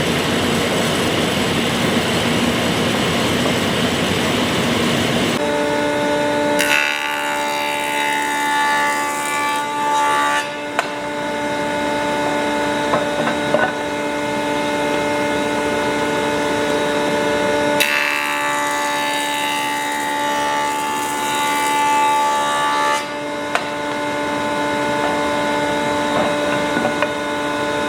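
A woodworking power tool running with a steady motor whine, cutting through wood twice, each pass lasting several seconds. Before it, a loud steady rushing noise cuts off abruptly about five seconds in.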